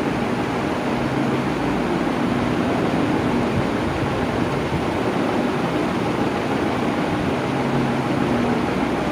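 Electric fan running steadily: an even rush of moving air with a faint low motor hum.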